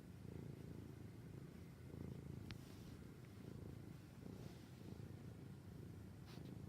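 Domestic cat purring softly while asleep, a low steady rumble that swells and fades in slow cycles.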